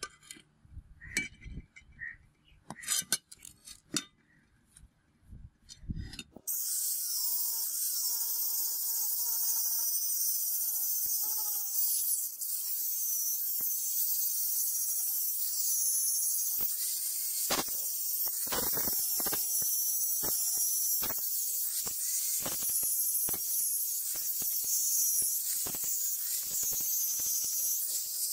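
A few light clicks and knocks as the steel meat cleaver is handled. About six seconds in, an angle grinder with an abrasive disc comes in abruptly on the steel blade, grinding it bright: a steady high hiss with a faint wavering whine and scattered knocks as the disc shifts on the blade.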